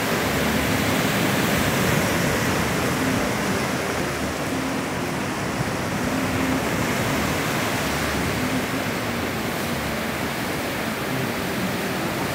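Rough sea: strong waves breaking and washing up the shore, heard as a steady rush of surf with no single crash standing out.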